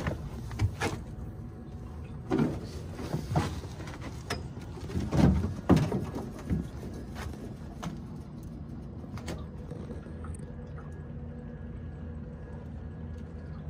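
Boat motor running steadily at trolling speed, under a series of knocks and clunks from fishing gear being handled in the boat. The loudest come about five to six seconds in, and they thin out after about ten seconds.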